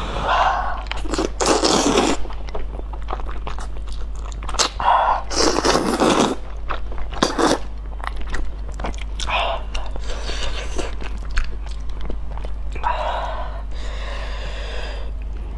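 A person slurping and chewing spicy instant noodles and glazed eel: several loud slurps, at about one to two seconds, five to six seconds, and again a little before the end, with quieter wet chewing between them.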